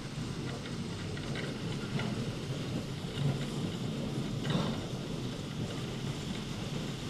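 Rubber-tyred Moscow Monorail train running between stations, heard from inside the car: a steady low rumble with a few faint clicks and a brief knock about four and a half seconds in.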